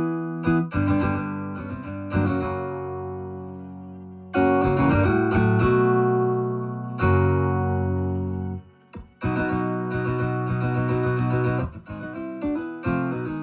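Acoustic guitar music: strummed and plucked chords in phrases, with a brief break about nine seconds in.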